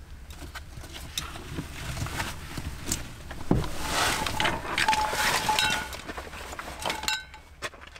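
A heavy, gear-laden backpack handled and lifted out of a car's cargo area: fabric rustling and scraping, a knock about three and a half seconds in, and metal gear hanging from the pack clinking and briefly ringing.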